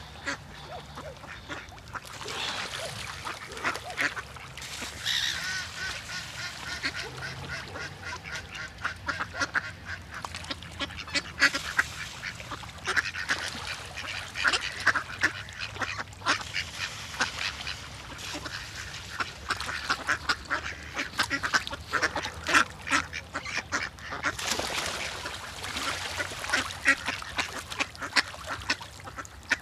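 A flock of birds calling at once: a dense, unbroken run of short calls, with now and then a longer held call.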